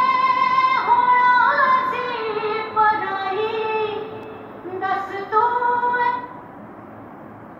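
A high voice singing long, held notes that slide from pitch to pitch, as in a melismatic song. The singing stops about six seconds in, leaving a low steady hiss.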